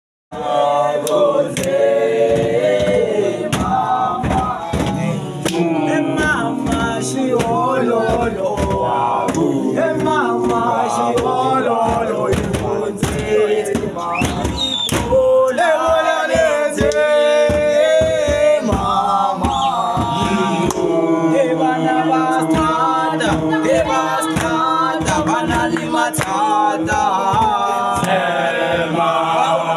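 A group of young men singing a cappella in close harmony, several voices moving together, with sharp beats keeping time.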